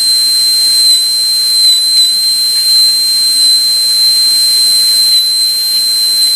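High-speed air-turbine dental handpiece (airotor) with a 330 bur running with a steady high-pitched whine over an air hiss while cutting a cavity outline in a model tooth. The pitch dips briefly a few times in the first two seconds as the bur bears on the tooth.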